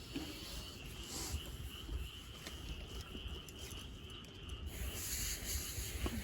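A steady high-pitched chirring chorus of calling animals, over a low rumble, with brief soft hisses about a second in and again near the end.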